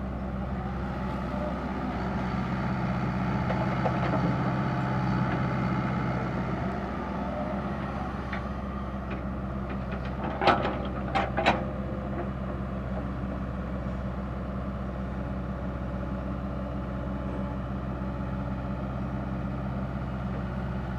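Komatsu PC60-5 hydraulic excavator's diesel engine running steadily under working load. The engine swells louder for a few seconds early on. About halfway there are three sharp metallic knocks close together.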